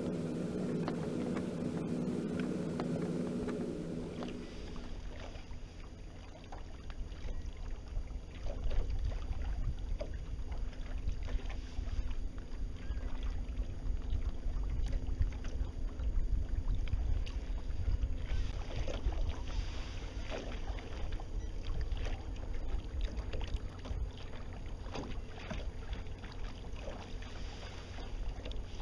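Water slapping and splashing against the hull of a Precision 18 sailboat under way, in irregular small splashes over a low wind rumble on the microphone. A steady hum in the first four seconds cuts off suddenly.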